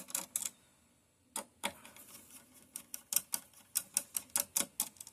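A run of small sharp clicks and ticks from a screwdriver working the screws of a motherboard's M.2 SSD heat sink. The clicks are sparse at first and come several a second from about three seconds in.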